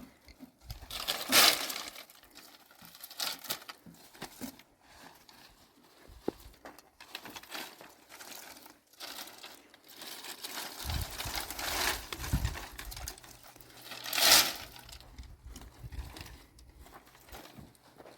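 Irregular rustling and crackling, like dry material being handled or trodden, with two louder crunches: one about a second and a half in and one near the end.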